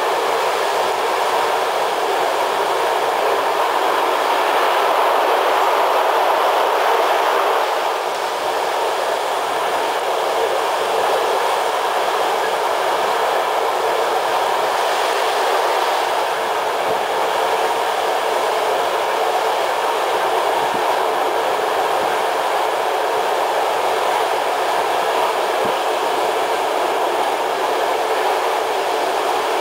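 Steady running noise of a moving passenger train heard from inside a carriage: wheels rolling on the rails, with a few faint clicks.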